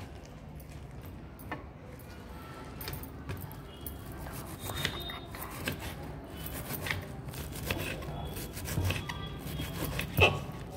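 A kitchen knife chopping spinach leaves on a wooden chopping board: irregular knocks of the blade on the board, with one sharper knock near the end, over a steady low hum.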